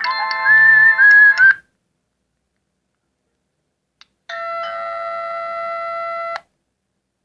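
Nokia 1200 ringtones playing from a Sony Ericsson Z610i phone's speaker. The last notes of one short electronic melody end about a second and a half in. After a pause, a held chord of electronic tones sounds for about two seconds and cuts off sharply.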